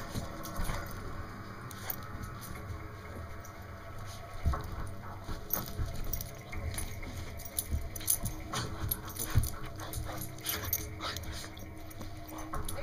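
A puppy and an older dog play-wrestling: scuffling and short knocks, busiest from about four seconds in, with dog vocal noises mixed in.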